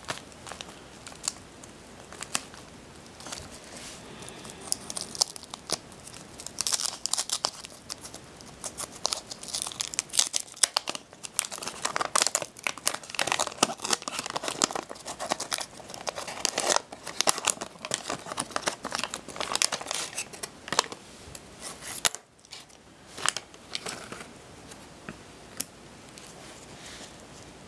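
A Garbage Pail Kids wax-paper pack wrapper is torn open and crinkled by hand, with a run of dense crackling through the middle. The crackling thins out to a few light rustles near the end.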